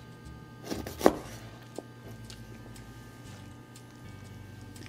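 Kitchen knife chopping through the joint of a raw chicken leg to take off the foot, striking a plastic cutting board: a few quick knocks about a second in, the last one the loudest and sharpest, then a single small click.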